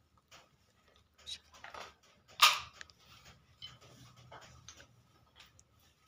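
Light rustles and small knocks of someone moving about and handling things, with one sharp knock about two and a half seconds in.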